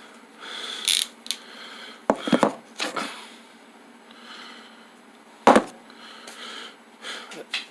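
Scattered clicks and knocks of tools and parts being handled, about half a dozen, the loudest about five and a half seconds in.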